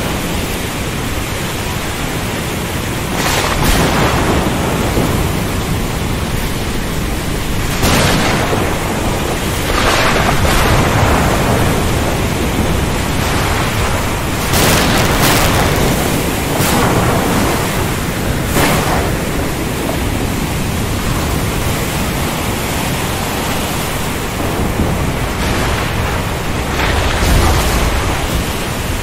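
Thunderstorm over the sea: a steady hiss of rain, wind and waves, broken by sharp cracks of thunder every few seconds, with a deep rumble near the end.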